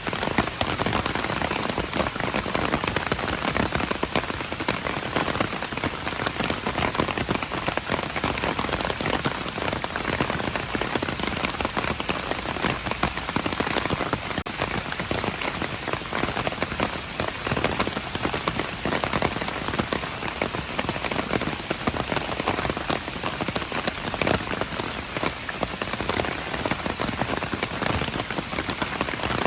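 Steady rain falling and pattering on hard surfaces, a dense even hiss of many small drop impacts.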